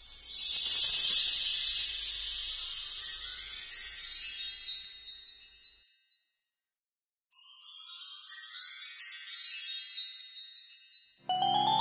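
Cartoon magic-wand sparkle sound effect: high, glittering chimes that fade out over about six seconds. After a short gap a second cascade of twinkling chimes follows, and a melody of pitched notes begins near the end.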